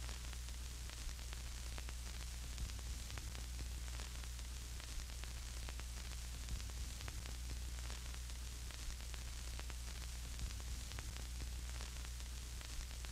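Low, steady hum under a faint hiss, with scattered soft crackles.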